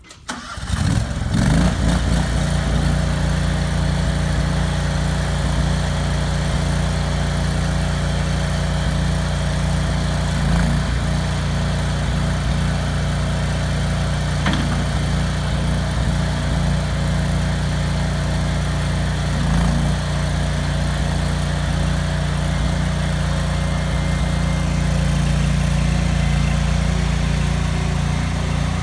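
Allmand TLB 220 loader backhoe's Honda V-twin gas engine starting within the first second, then running steadily at idle.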